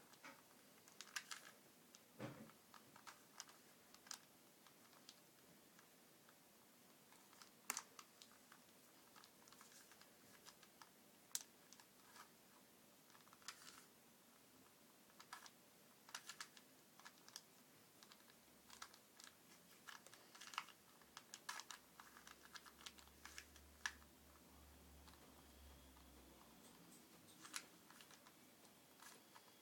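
Faint, irregular plastic clicks and clacks of a 2x2x3 puzzle cube's layers being turned by hand.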